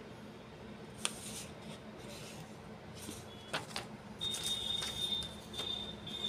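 Electronic beep from a Kusters banknote counting machine: a few light clicks, then a steady high-pitched tone starting about four seconds in, broken briefly once or twice.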